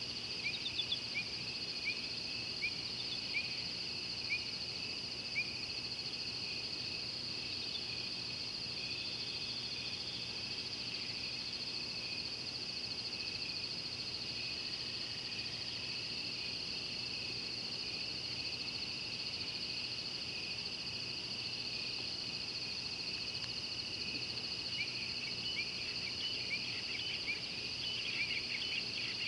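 Steady, high-pitched chorus of night insects such as crickets, with runs of short, falling chirps near the start and again near the end.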